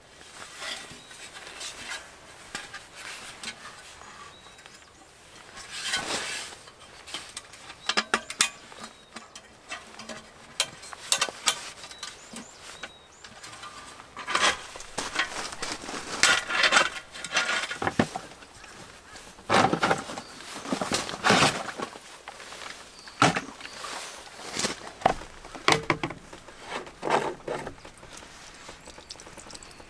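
Fury Gravity camp table parts, hard plastic and metal panels, legs and a box, being handled and fitted together: an irregular run of clacks, knocks and scrapes, busier and louder in the second half.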